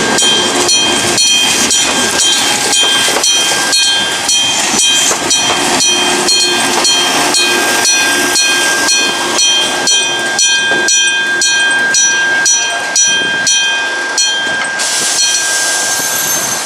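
Japanese railway level-crossing alarm ringing at about two and a half strikes a second, while a train runs through the station. A hiss joins in near the end.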